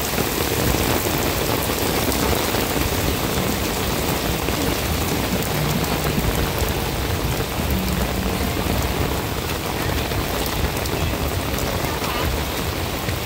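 Heavy rain shower falling on a wet paved street: a dense, steady hiss of drops splashing on the stone paving and puddles.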